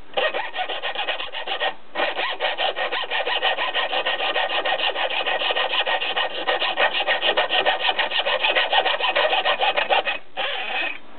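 Hacksaw cutting through the metal rail of old model-train track with quick back-and-forth strokes, breaking off briefly about two seconds in and stopping about ten seconds in.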